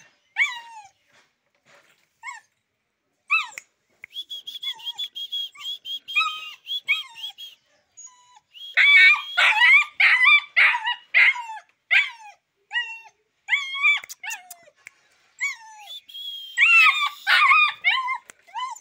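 Rottweiler–Boxer mix puppy barking in short, high-pitched yaps, in bouts with pauses between them; the loudest, fastest runs come about nine seconds in and again near the end.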